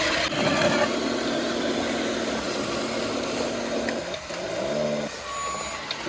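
Small electric motors and gearboxes of radio-controlled construction models running, a steady whine that changes pitch about four seconds in, with a short higher tone near the end.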